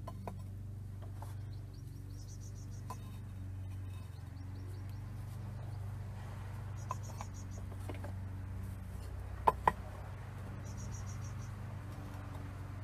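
Unfired clay pieces being set by hand onto a kiln shelf: light scraping and tapping, with two sharp clicks close together about nine and a half seconds in. A steady low hum runs underneath, and a short burst of rapid high chirps comes every few seconds.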